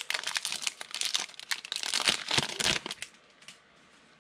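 Foil trading-card pack crinkling as it is opened and the cards are pulled out, dying away about three seconds in.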